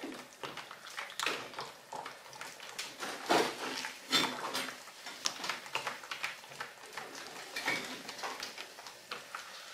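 Pork lard being beaten by hand in a bowl for tamale dough: a utensil scraping and knocking against the bowl in irregular strokes, with soft squelches from the lard.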